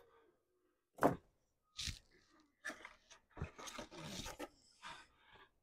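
Paper-pulp egg crates and cardboard inserts scraping and crunching against each other and the plastic tub as they are handled and pushed into place. A series of irregular rustles, with a sharp knock about a second in.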